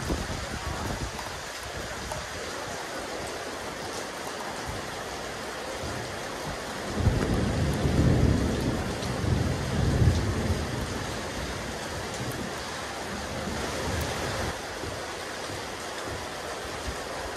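Steady rain falling on a rooftop terrace, a constant hiss of drops. About halfway through, a deep low rumble swells up twice for a few seconds and fades.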